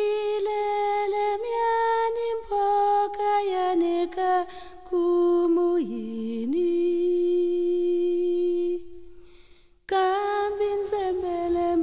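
A single voice singing a slow melody unaccompanied, in long held notes. A long note fades away about three-quarters of the way through, and after a brief pause the singing starts again.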